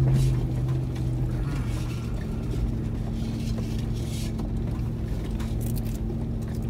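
Toyota Land Cruiser 100's V8 engine running at a steady, even drone while driving slowly over a loose gravel track, heard from inside the cabin, with tyre rumble and small knocks from the stones.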